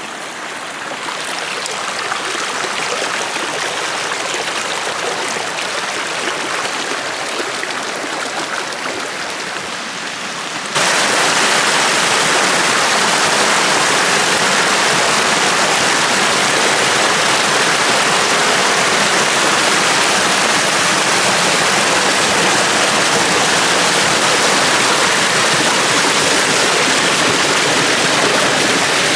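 Rushing water of a stream, a steady noise; about eleven seconds in it jumps abruptly to a louder, fuller rush.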